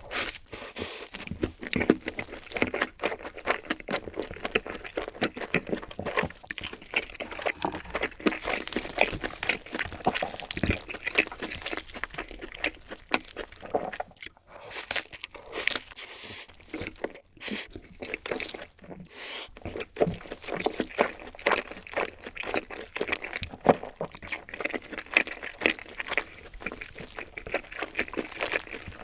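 Close-miked eating sounds: a dense, irregular run of crunchy bites and chewing.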